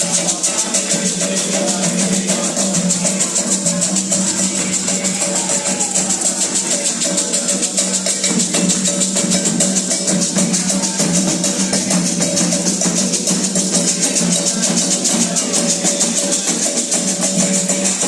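Candomblé ritual music, with shakers rattling in a fast, continuous rhythm over steady lower tones throughout.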